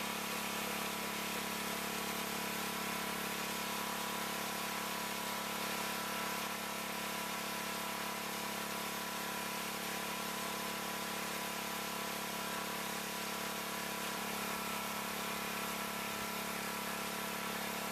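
Gas-powered pressure washer's small engine running steadily at idle, a constant hum with a hiss over it.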